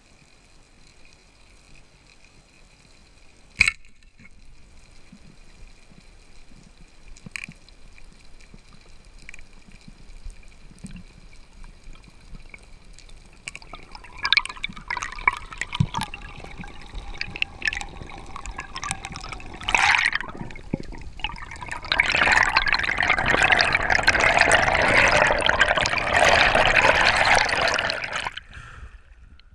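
Underwater recording: a sharp click a few seconds in, the speargun firing, over a faint steady hum. Water noise and bubbling then build into a loud rush of bubbles that stops just before the end.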